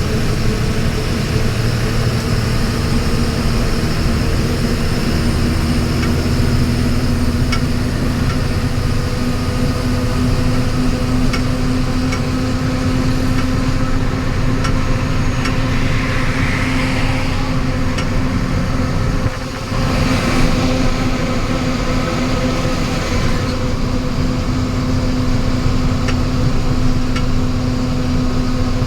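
Vehicle driving along a highway: steady engine hum and road rumble with a constant droning tone, briefly dipping about two-thirds of the way through.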